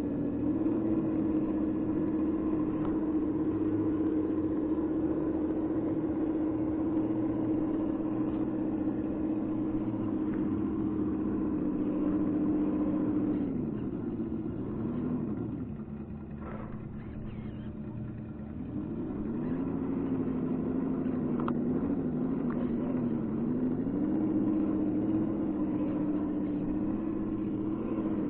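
Electric motor and gear drive of a 1:10 scale RC crawler whining steadily. About halfway through the whine drops in pitch and fades as the motor slows, then rises back and holds steady again.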